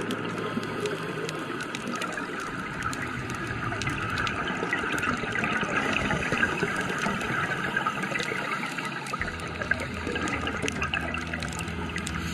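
Underwater scuba audio through a camera housing: steady muffled bubbling and gurgling of divers' exhaled regulator bubbles, with scattered faint clicks. A low rumble joins about nine seconds in.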